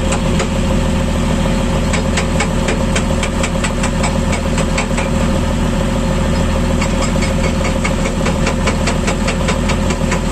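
Excavator's diesel engine running steadily, with a rapid clicking, about five clicks a second, coming in about two seconds in and again later on.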